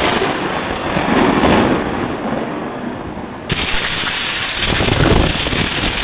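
Heavy rain and storm wind on a security camera's microphone: a loud, dense rush with gusts buffeting the mic. A sudden cut about three and a half seconds in, after which it carries on as loud.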